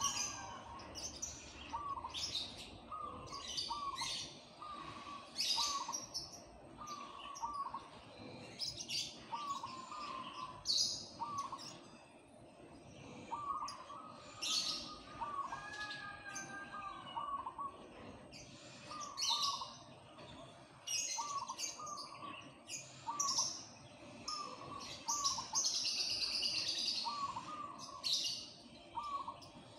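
Zebra dove (perkutut) cooing, a steady run of short, soft, repeated coo notes every second or so. Other small birds chirp sharply and higher-pitched over it throughout, with a dense burst of chirping near the end.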